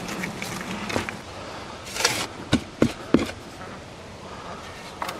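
Shovel digging and scraping through compost, with a scrape about two seconds in and then three sharp knocks from the shovel in quick succession.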